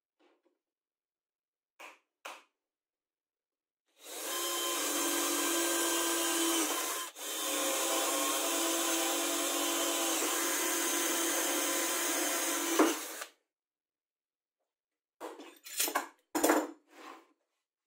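Cordless drill running at speed, boring holes through a plywood table board, steady for about nine seconds with one short break partway through. A couple of light clicks come before it, and a few short knocks and rustles near the end.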